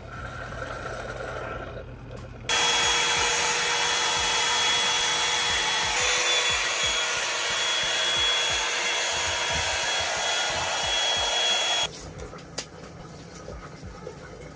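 A Keurig coffee maker finishes pouring coffee into a mug. Then, about two and a half seconds in, a hair dryer switches on and runs steadily with a high whine for about nine seconds before cutting off abruptly.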